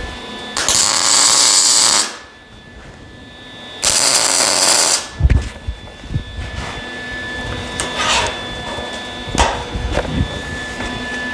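MIG welder laying two tack welds on exhaust pipe against sheet steel: two crackling bursts of arc, each a little over a second long, about three seconds apart. After them come sharp clicks and knocks of metal being handled.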